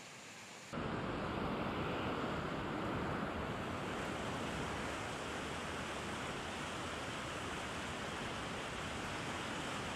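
Turbulent river water rushing and churning in the white-water outflow below sluice gates, close to the microphone. It is a steady, full rush that starts abruptly about a second in, after a faint hiss.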